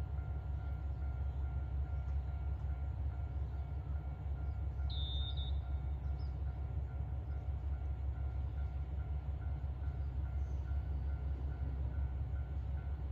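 Single diesel railcar pulling slowly away from the station, its engine a low, steady rumble with a faint steady hum over it. A brief high chirp sounds about five seconds in.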